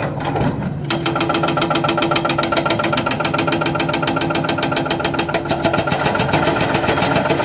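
Hydraulic breaker on a Hidromek 300LC excavator hammering, starting about a second in and running as a rapid, even stream of blows over the machine's engine.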